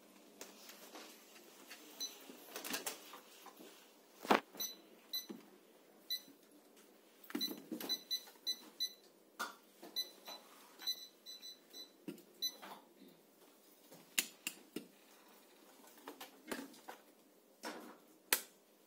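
An Eloik ALK-88 optical fibre fusion splicer giving a run of short high beeps in the middle, among sharp clicks and snaps as its lid and fibre clamps are opened and closed and fibre is loaded.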